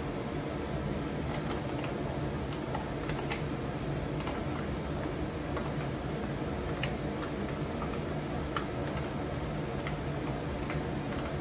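Meat sauce with hotdog cooking in a frying pan: scattered, irregular light pops and ticks over a steady low hum.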